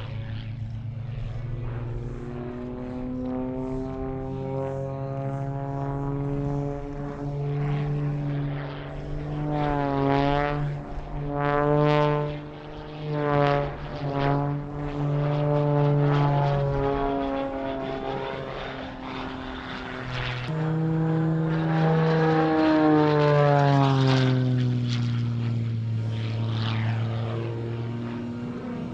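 Propeller-driven aerobatic plane's engine through a display routine, its pitch climbing and sinking as power and speed change through the manoeuvres. The sound swells and dips quickly in the middle, then grows loudest and falls in pitch near the end as the plane passes.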